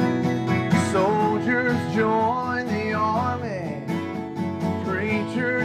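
Country music with acoustic guitar.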